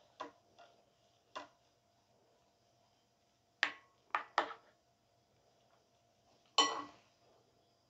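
Dishes and utensils being handled in a kitchen: scattered sharp clinks and clatters, about seven in all, with a quick cluster of three in the middle and the loudest knock near the end ringing briefly.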